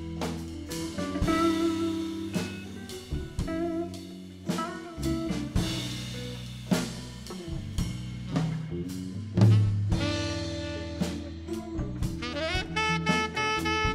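Live blues-rock band playing: drum kit, electric bass, electric guitar and keyboard under two saxophones. Near the end the melody climbs quickly into long held notes.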